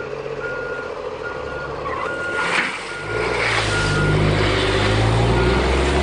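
Vehicle backup alarm beeping, a little more than one beep a second, over a dump truck's engine, which runs louder from about three seconds in while the raised bed dumps its load of dirt. A short hiss about two and a half seconds in.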